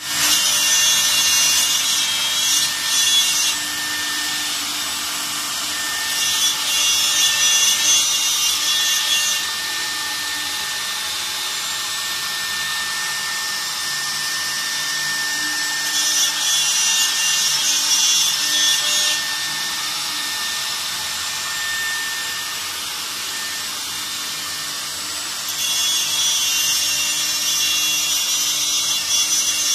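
CNC wood router running on MDF: a steady high whine with a thin constant tone, rising four times into louder, shriller stretches of a few seconds each.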